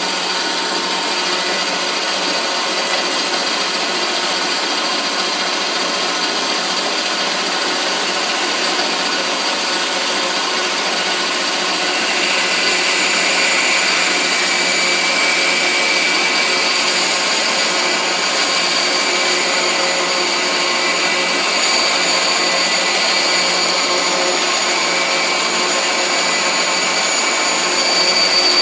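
Bandsaw running steadily while cutting curved arcs into small wooden blocks; the sound grows a little louder about twelve seconds in.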